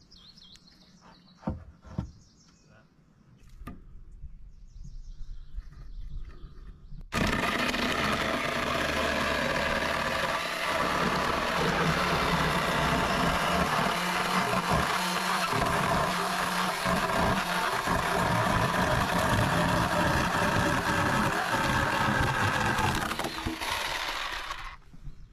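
A few knocks, then a small Ryobi battery chainsaw starts suddenly about seven seconds in and cuts steadily through a wooden post, stopping shortly before the end.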